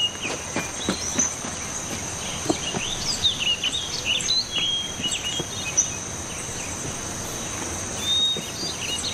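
Steady high-pitched insect drone with birds chirping in short, gliding calls, busiest from about three to five seconds in and again near the end. A few soft knocks or steps sound in the first few seconds.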